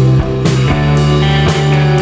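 Background rock music: sustained guitar chords over a steady drum beat of about two hits a second.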